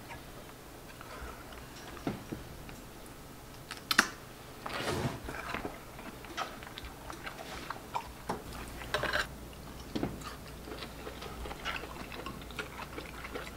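Eating sounds: soft chewing, with irregular clicks and taps of chopsticks against bowls and plates; one sharper click about four seconds in.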